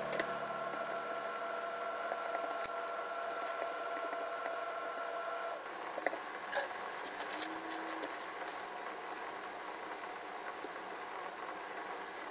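Kitchen knife cutting thick fried tofu on a wooden board, a few soft knocks over a steady hum that stops about five and a half seconds in. Then chopsticks stir cooked green peppers in a glass container, with a quick run of clinks about seven seconds in.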